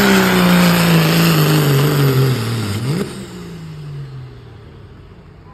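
Diesel pickup truck engine under pulling load, its revs falling steadily over about three seconds as it comes off the throttle. It blips up once briefly, then fades away.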